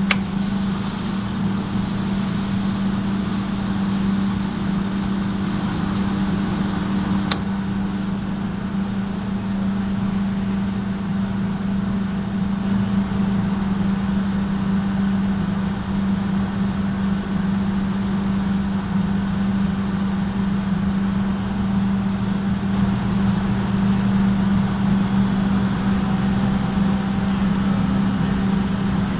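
Main drive motor of an industrial dryer running steadily with a strong, constant hum, a noise marked as abnormal. A single sharp click about seven seconds in.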